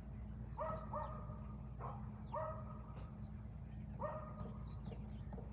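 A dog whining and yipping in short, high calls, often two in quick succession, repeated several times over a steady low hum.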